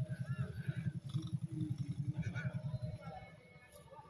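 An ATV engine running some way off, a rapid low throb that fades away about three seconds in.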